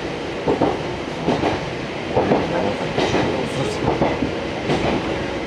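Fukui Railway Fukubu Line train running at speed, heard from inside the car: a steady rumble of wheels on rail with a short clack about once a second as the wheels pass over rail joints.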